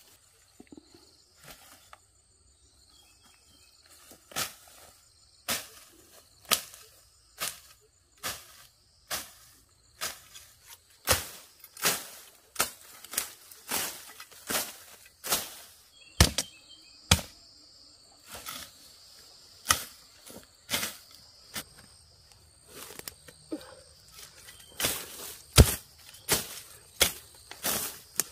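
Sharp knocks, roughly one a second, starting about four seconds in and coming faster near the end, over a faint steady high insect trill.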